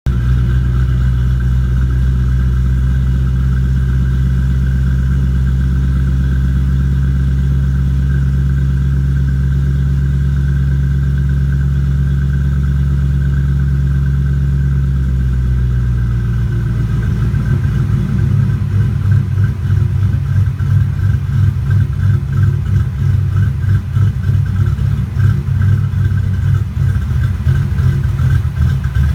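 2005 Mustang GT's 4.6-litre V8 idling, steady for about the first half, then the idle turns uneven and pulsing from a little past the middle. The rough running is the sign of a vacuum leak.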